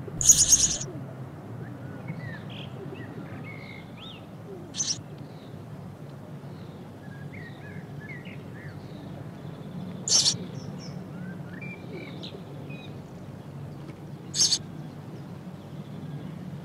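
House sparrows calling: four short, harsh, high calls a few seconds apart, the first the longest and loudest, with faint chirping from other sparrows throughout.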